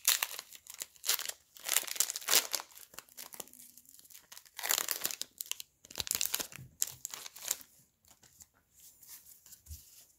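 Foil booster-pack wrapper crinkling and tearing as it is opened, in several bursts over the first seven or so seconds, then fainter handling.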